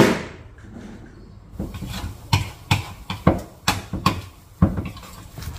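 A metal fork clacking and scraping against a plastic bowl as it works a stiff tofu-and-flour dough, a run of sharp clicks about two or three a second. A brief loud rushing noise comes right at the start.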